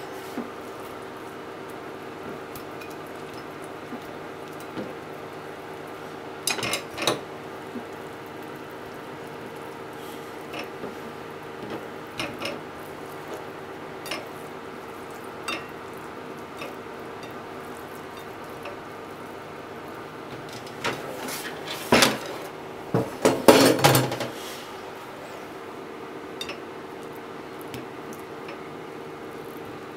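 Kitchen handling sounds: scattered light knocks and clinks of a kitchen knife, a plastic cutting board and a ceramic plate as pieces of deep-fried tofu are handled. A louder cluster of clatter comes about three quarters of the way through, over a steady low hum.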